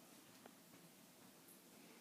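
Near silence: room tone, with one faint click about half a second in.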